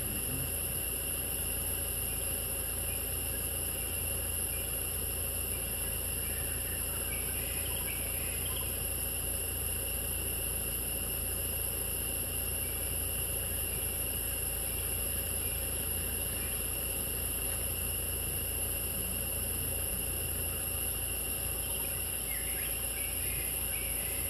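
Steady, high-pitched chorus of forest insects, crickets or cicadas, with a low steady rumble underneath. A few faint chirps come through about a third of the way in and again near the end.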